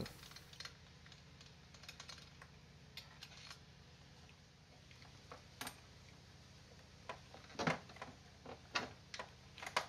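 Faint, irregular clicks and taps of a hand ratchet and socket working loose the intake manifold bolts, then a few louder knocks near the end as the intake manifold is handled and lifted off the engine.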